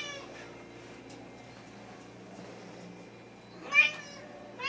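Thai (Wichien Maat) cat meowing: a meow trailing off at the start, a short loud meow almost four seconds in, and another beginning just at the end.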